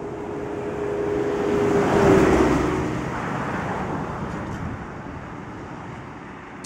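A car passing by on the road, growing louder to a peak about two seconds in and then fading away, its tone dropping in pitch as it goes past.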